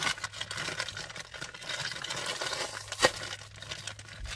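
A Takis Blue Heat tortilla-chip bag being pulled open by hand: continuous crinkling of the plastic bag, with one sharp pop about three seconds in as the seal gives way.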